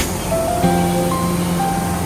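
Background music: a slow melody of held notes over a soft wash, without the heavy beat and bass that stop just as it begins.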